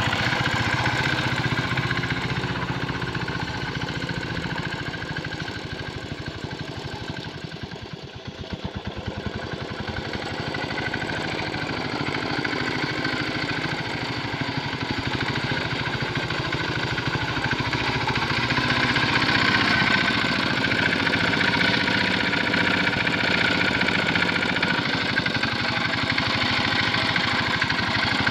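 Quick Capung Metal two-wheel hand tractor's small single-cylinder diesel engine running steadily under load while tilling a flooded paddy. The sound dips about eight seconds in and grows louder again in the second half as the tractor comes nearer.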